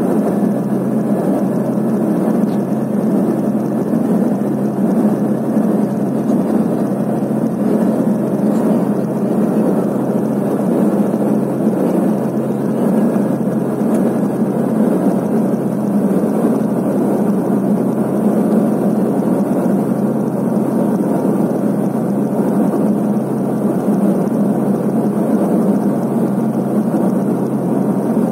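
Cabin noise of a Let L-410 UVP-E20 twin turboprop in flight on its approach to land: the engines and propellers give a steady low droning hum under an even rush of air and engine noise, unchanging throughout.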